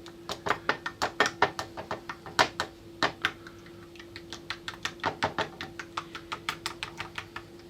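A spoon stirring powder into soda in a cup, clicking and scraping against the cup in a fast, uneven run of taps, several a second, as the mix turns to slime.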